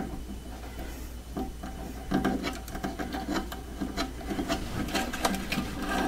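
Hands working thin hookup wire through small holes in a dollhouse's wooden wall: irregular rubbing and rustling with light ticks, close up, over a steady low hum.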